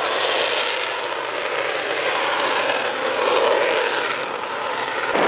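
Northrop T-38 Talon's twin General Electric J85 turbojets at takeoff power as the jet rolls down the runway: a loud, steady jet roar that dips slightly midway and swells again.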